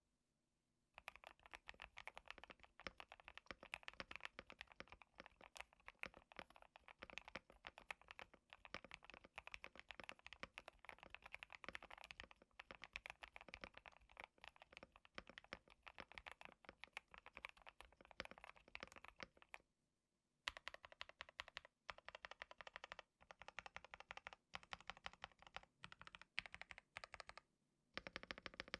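Fast, continuous typing on a KBD67 Lite mechanical keyboard with mixed frankenswitched switches, modded with case foam, car foam, PE foam and tape. The typing starts about a second in, with a short pause about two-thirds of the way through and another near the end.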